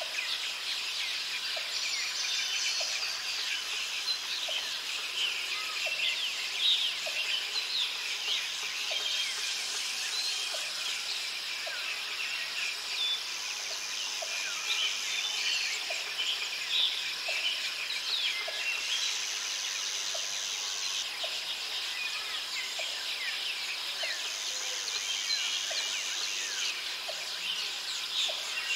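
Forest ambience: many birds chirping and calling over a steady high insect drone that swells in and fades out in stretches of a few seconds, with a faint regular tick about once a second.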